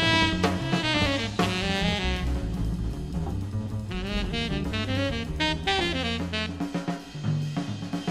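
Instrumental jazz recording: a tenor saxophone plays a fast, busy line over drum kit and walking bass. Near the end the saxophone falls away and the drums come forward.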